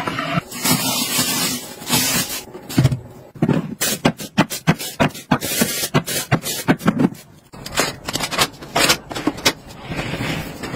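Handling sounds of plastic household storage gadgets: a quick run of sharp clicks, knocks and scrapes of hard plastic, after brief water rushing at the start.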